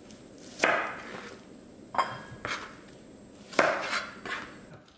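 Chef's knife cutting Brussels sprouts in half against a cutting board: three sharp knocks of the blade through the sprout onto the board, about a second and a half apart, with lighter taps between.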